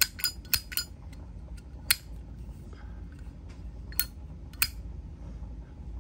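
Metal clicks and clinks from a Zippo lighter being handled, a quick run of about five in the first second, then a few single clicks spaced out afterwards.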